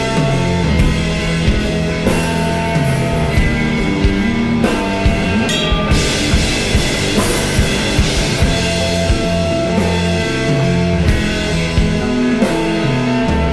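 Psychedelic rock band playing an instrumental passage live: drum kit keeping a steady beat under bass and electric guitar.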